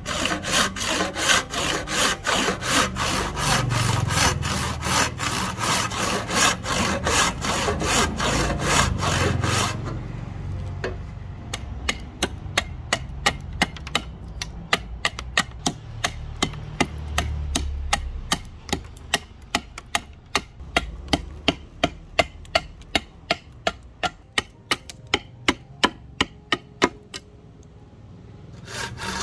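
Hand saw cutting rosewood in steady back-and-forth strokes. About ten seconds in the strokes turn lighter and sharper, about two or three a second, and heavier sawing starts again near the end.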